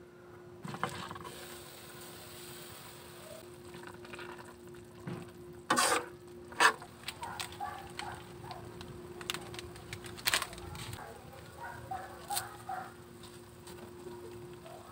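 Kitchen handling sounds at a wok: an aluminium lid clatters onto the pan about a second in, two loud sharp knocks follow about six seconds in, then crinkling and small clicks as a plastic packet of misua noodles is handled and the dry noodles are dropped into the broth. A faint steady hum runs underneath.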